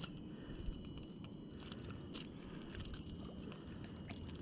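Faint scattered clicks and scrapes of fishing pliers working a hooked lure free from a fish's mouth.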